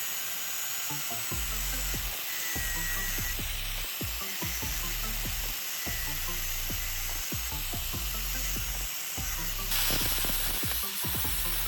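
Background music with a steady beat over a continuous crackling hiss of metalworking, which grows louder near the end.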